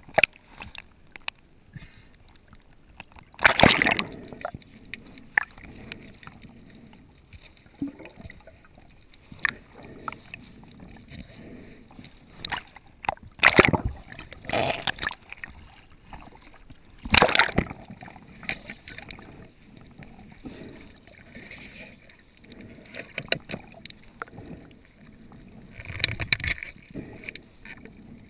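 Water sloshing and gurgling around a diver's action camera, broken by irregular louder splashes of about half a second each.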